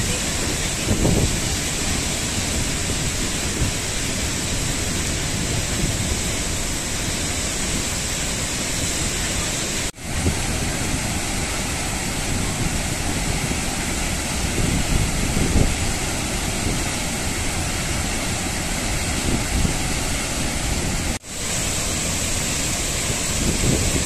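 Athirappalli Falls rushing: a heavy, steady roar of falling water crashing into the pool below. The sound drops out briefly twice, about ten and twenty-one seconds in, where the recording cuts between clips.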